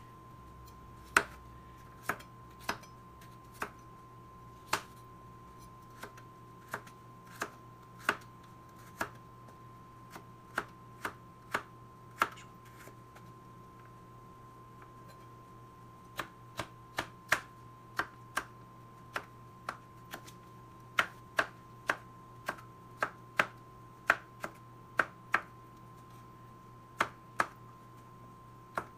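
Kitchen knife chopping a carrot into sticks on a plastic cutting board: sharp, irregular knocks of the blade hitting the board. They pause for a few seconds about midway, then come quicker. A faint steady hum lies underneath.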